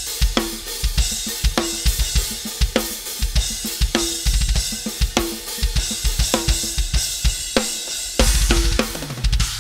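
Full drum kit played hard: a constant cymbal wash from Meinl Byzance cymbals over bass drum and snare hits. Quick runs of bass-drum strokes come about four seconds in and again near the end.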